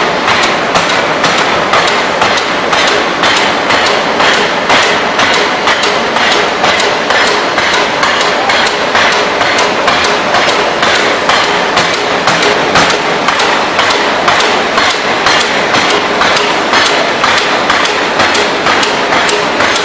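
Electro-hydraulic open-die forging hammer striking a workpiece in a fast, even run of blows, with a steady noise beneath.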